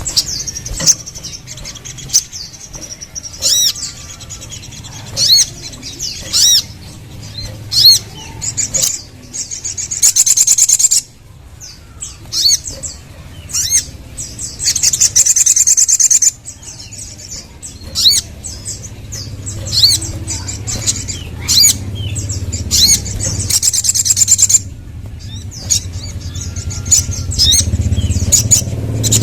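Crimson sunbird (sogon) singing: sharp high chirps repeated about once a second, broken by a few runs of fast trilling. A low steady hum sits underneath.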